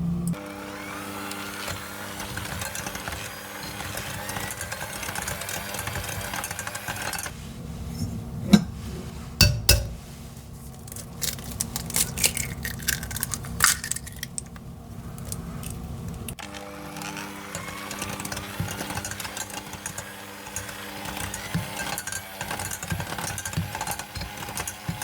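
Electric mixer running steadily in a bowl of batter, stopping for several seconds midway while a few sharp clinks sound, then starting up again.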